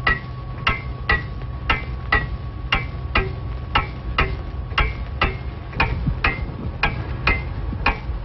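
Clock ticking steadily, about two ticks a second in an alternating tick-tock, over a low steady hum.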